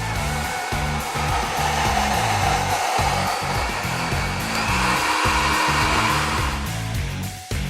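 Salon-type hair dryer blowing, a steady rush of air whose pitch shifts higher about halfway through and dies away near the end, over background music.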